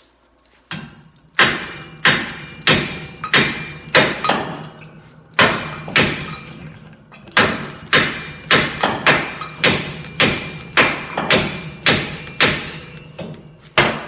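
Hammer blows on a steel tool (a cut-off inner tie rod threaded into the hub), knocking a 2012 Ram 2500's front wheel hub out of the steering knuckle. About twenty sharp metallic strikes, each with a short ring, at roughly one to two a second, with two brief pauses.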